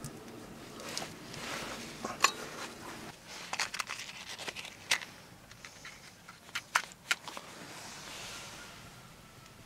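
Rustling and sharp clicks of hands handling a dried corn cob and a matchbox, then a match struck and flaring near the end.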